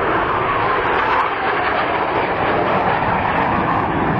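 Loud, steady rushing noise of an aircraft engine, with a faint tone that drops slightly in pitch early on.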